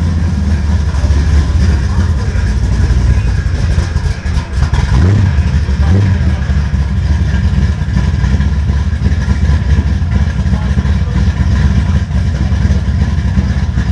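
The 1973 Chevrolet Caprice's engine running, a steady deep rumble that dips briefly about four and a half seconds in.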